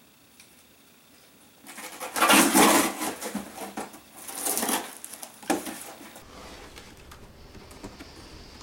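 Packing tape being ripped off a cardboard box in several noisy tearing pulls, the loudest two to five seconds in, followed by fainter handling of the cardboard.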